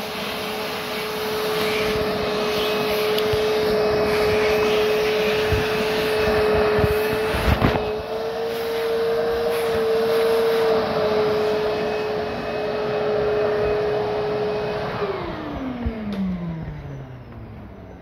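A motor-driven machine running with a steady whine over rushing air, with a sharp knock about halfway through. Near the end it is switched off, and the whine falls steadily in pitch as the motor spins down.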